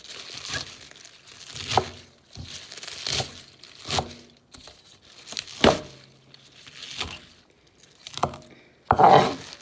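Packaging crinkling and rustling as it is handled in the kitchen, in about eight short bursts roughly a second apart, with a loudest rustle near the end.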